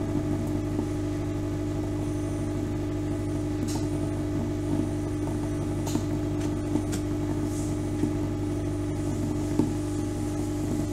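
Dental laboratory vibrator running with a steady mains hum, shaking mixed dental stone so that it flows into the impression and air bubbles come to the surface. A few light clicks are heard over the hum.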